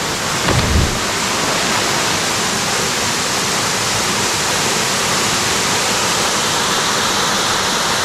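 Steady rush of falling water from the Blue Basin Waterfall, an even wash of noise with no let-up. A brief low rumble comes through about half a second in.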